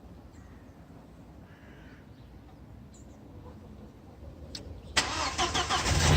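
Audi A4 B5's 1.8-litre turbocharged four-cylinder engine being started: a couple of clicks, then the starter cranks about five seconds in and the engine catches near the end.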